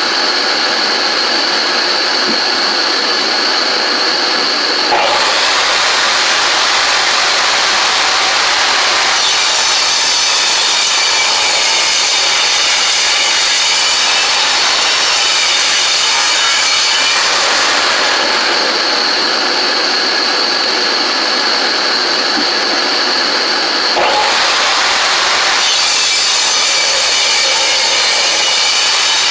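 Woodworking power tool running loud and steady with a high whine. About five seconds in, and again about 24 seconds in, the sound thickens into a coarser cutting noise as wood is fed into the blades.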